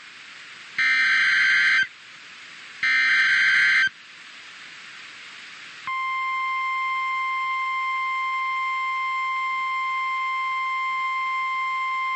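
NOAA Weather Radio Emergency Alert System header: the last two of the screeching SAME data bursts, each about a second long with a second's gap, then faint hiss. About six seconds in, the steady 1050 Hz warning alarm tone begins and holds; it announces a tornado warning.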